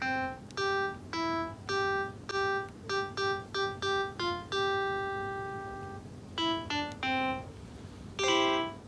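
A simple keyboard melody played one note at a time with an electronic piano-like tone. There is a longer held note about halfway through and a final two-note chord near the end.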